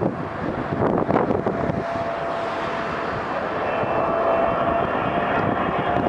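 Boeing 777-300ER's GE90-115B engines on final approach, growing steadily louder, with a steady whine that comes in about one and a half seconds in and strengthens. Gusts of wind hit the microphone in the first couple of seconds.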